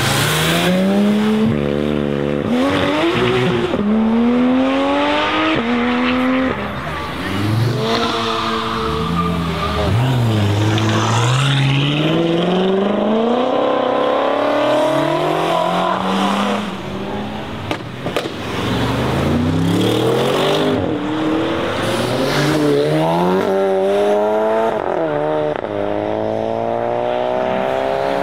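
Modified performance cars accelerating hard away, their engines revving up with rising pitch and dropping back at each gear change, one after another. A long climbing rev near the end.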